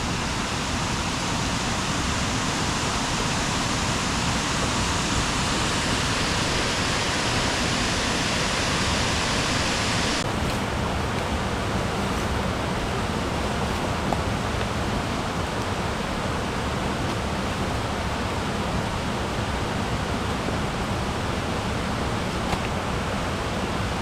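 Steady rush of creek water, a loud, even hiss. About ten seconds in the sound turns suddenly duller, losing its upper part.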